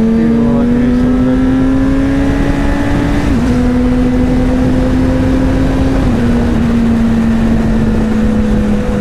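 Suzuki GSR 600's inline-four engine running at steady cruising revs, heard from the rider's seat with wind rushing over the microphone. Its pitch creeps up, dips briefly at about three seconds and again at about six seconds, then slowly falls away as the throttle eases.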